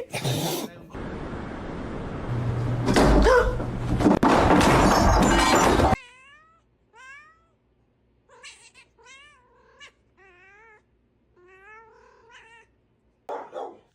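A loud rushing noise that cuts off suddenly about six seconds in, then a cat giving a string of short meows and one warbling trill.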